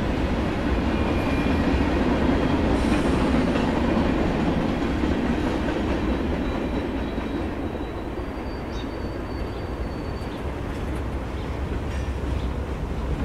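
N scale model freight train of grain hoppers running past on the track: a steady rolling noise of small wheels and motor, loudest a few seconds in. A faint high wheel squeal comes in for a few seconds in the middle.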